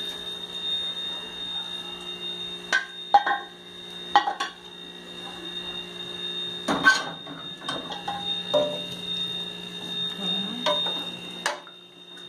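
Aluminium cooking pots and lids clanking and knocking on a gas stove: several sharp metallic clanks with short ringing, the loudest about 3 and 7 seconds in. Under them runs a steady electrical hum that cuts off near the end.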